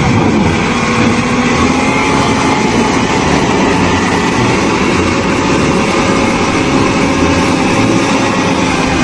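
A machine's engine running loudly and steadily.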